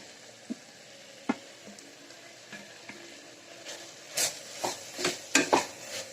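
Faint sizzling in a frying pan as cut mushrooms are frying in onion and chilli-garlic masala, with a few light knocks. Over the second half a spoon stirs and scrapes the pan in a run of quick, louder strokes.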